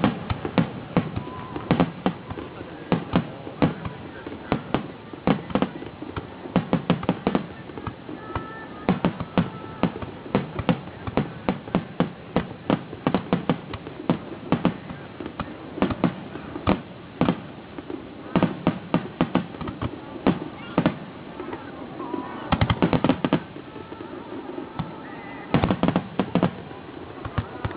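Fireworks going off in quick succession: a continuous string of sharp bangs and crackles, thickening into dense volleys about 22 and 26 seconds in.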